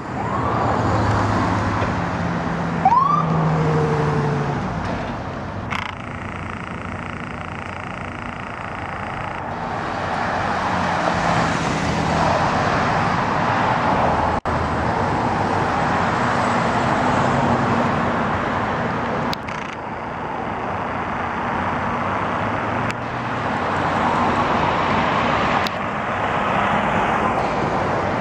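Road traffic passing on a city street, cars and an ambulance going by, swelling and fading as each passes, with one short rising whoop about three seconds in.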